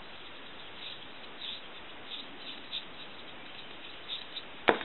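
Faint, scattered high squeaks and scratches of the handset transmitter's contacts being wiped clean of tarnish, over a steady hiss, with one sharp click near the end as a part is handled.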